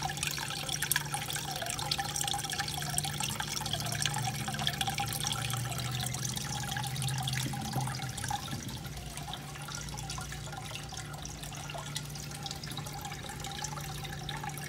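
Aquaponics bell siphon draining the grow bucket: water splashing and trickling out of the drain into the aquarium, with many small drips, over a steady low hum.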